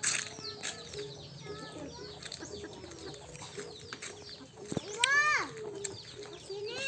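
Small birds chirping rapidly and continuously in short downward-sliding chirps. About five seconds in, a voice gives one short call that rises and then falls.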